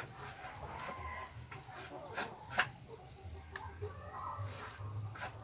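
Caged fighting crickets (jangkrik kalung) chirping in a fast, even run of short high chirps. Light clicks and rustles of bamboo cage slats and water spinach leaves being handled come in now and then.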